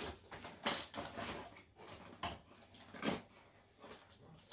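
Toy packaging being handled and cut open: a few short, scattered rustles and scrapes of cardboard and plastic.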